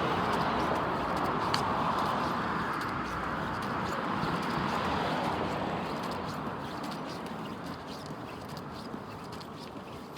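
Noise of a passing vehicle, fading steadily as it moves away, with faint scattered clicks and a sharp knock at the very end.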